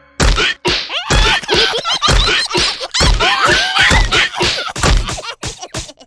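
Cartoon slapstick scuffle: a run of heavy thuds and whacks, about one a second, mixed with sharp hits and squealing, jabbering cartoon voices.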